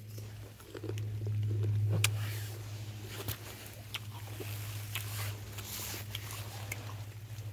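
Wicker basket full of apples being handled and carried over grass: scattered light clicks, creaks and rustles, over a low steady hum that swells about a second in and slowly fades.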